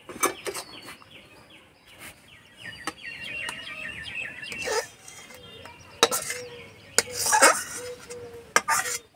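A metal spatula scrapes and knocks against an aluminium kadai, a series of sharp clinks, as thick cooked semolina halwa (suji halua) is scooped out into a steel bowl. Birds chirp in the background.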